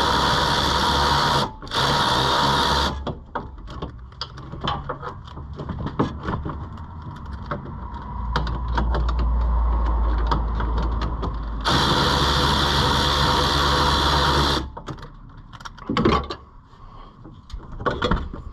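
A handheld power tool running in bursts as fasteners come off: two bursts near the start, one longer burst about twelve seconds in. Between them come clicks and clanks of tools and metal parts.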